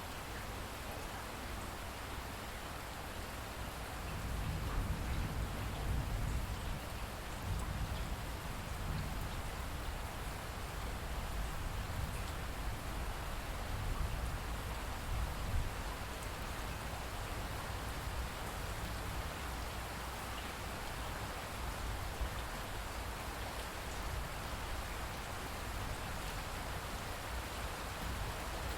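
Steady rainfall, an even hiss of drops falling on surfaces. A deeper low rumble swells in about four seconds in and eases off around halfway through.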